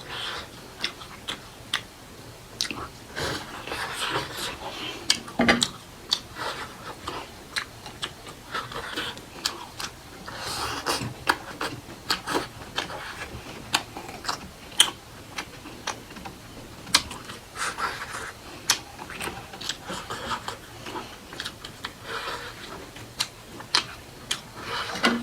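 A person chewing and biting food, with wet mouth clicks and smacks coming at irregular intervals.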